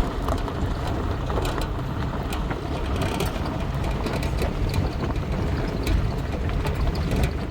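A vehicle on the move: a steady low rumble with many small rattles and clicks through it, cutting off just at the end.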